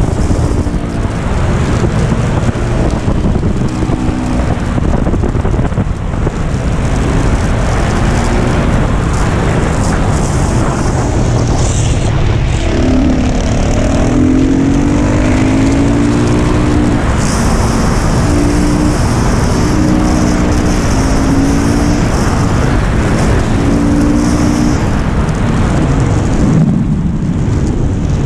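KTM 690 SMC R supermoto's single-cylinder engine under hard riding, heard from on board the bike with heavy wind rush over the microphone; the engine note rises and falls as the rider accelerates, shifts and rolls off for corners.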